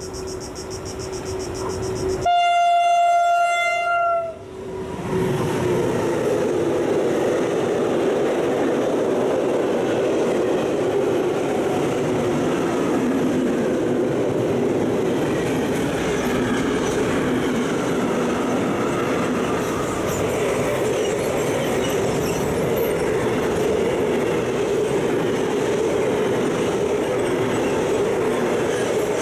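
A freight train approaches and its locomotive sounds one horn blast of about two seconds. It then passes close by: a long, steady rolling rumble of loaded car-carrier wagons and covered goods wagons on the rails.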